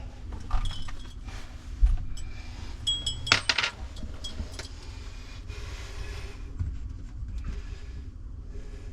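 Metal tools and fittings clinking and knocking as plumbing parts are handled and worked, with a few sharp ringing clinks about a second in and about three seconds in.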